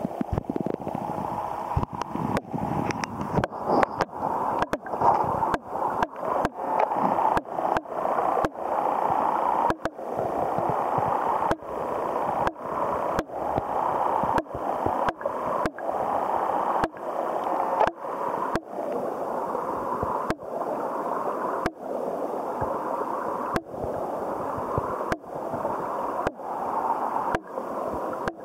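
Stream water rushing, heard from underwater: a steady, muffled rush broken by frequent sharp clicks.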